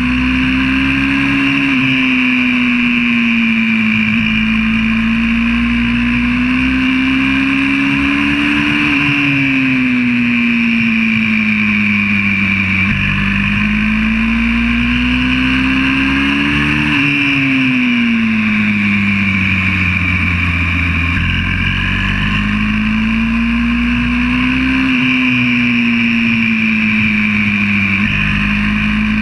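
Single-cylinder four-stroke 125cc pit bike engine running hard. Its note climbs slowly under acceleration and then falls away when the throttle comes off, about every eight seconds, over a steady rushing hiss.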